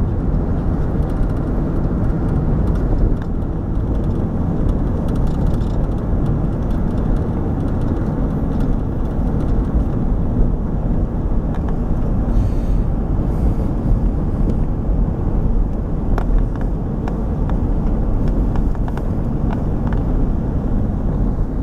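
Steady low rumble of travel heard from inside a moving vehicle, even throughout, with a few faint clicks.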